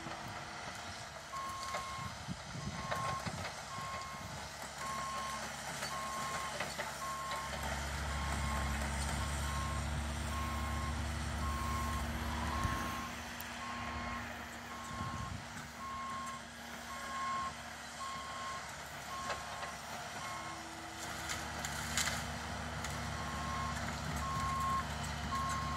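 Cat excavator's motion alarm beeping over and over while its diesel engine runs, the engine working harder for a few seconds around the middle. The beeping pauses briefly near the end, then starts again.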